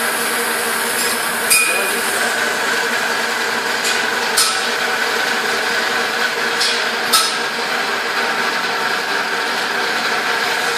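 Automated idler conveyor roller welding machine running with a steady hum holding several tones, broken by about five sharp metallic clinks.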